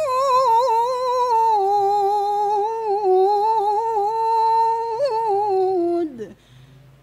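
A woman's solo voice in melodic Quran recitation (tilawah), holding one long, drawn-out note with small ornamental turns. About six seconds in, the note slides down and breaks off, leaving faint room noise.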